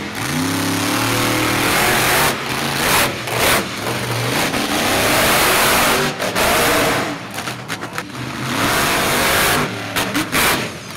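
Monster truck engine revving hard in repeated full-throttle bursts, rising in pitch at the start, with brief drops in power between bursts as the truck accelerates and jumps.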